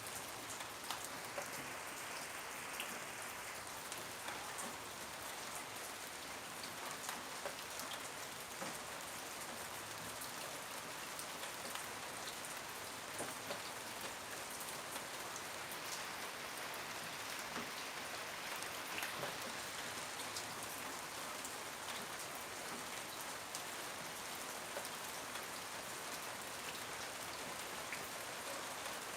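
Steady rain falling, a dense even hiss with many separate drops ticking on a hard surface.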